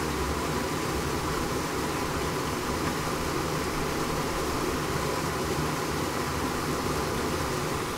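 Water flowing through the buried Los Angeles Aqueduct conduit, picked up by a microphone lowered into an access portal: a steady rush with a few held tones in it.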